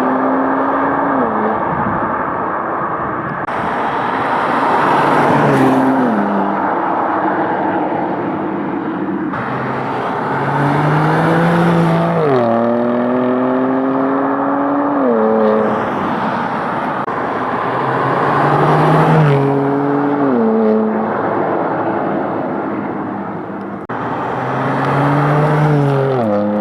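BMW M2 Competition's twin-turbo straight-six, through a Milltek exhaust, accelerating hard in several pulls. The engine note climbs and then drops sharply at each upshift, with loud exhaust roar between the pulls.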